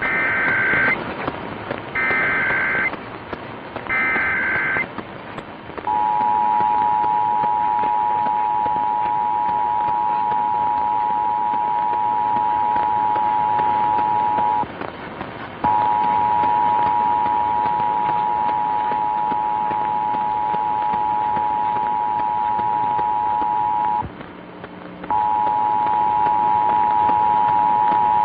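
Emergency Alert System test received on a radio: three short bursts of the SAME data header, then the two-tone attention signal sounding steadily, broken twice for about a second, all over a constant hiss of radio static.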